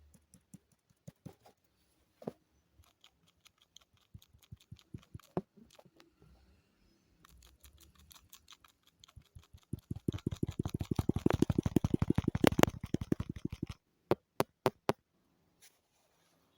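Touch-feedback clicks from an itel A16 Android phone as its screen is tapped: scattered single clicks at first, then a fast, dense run of taps about ten seconds in that lasts nearly four seconds and is the loudest part, then a few last separate clicks.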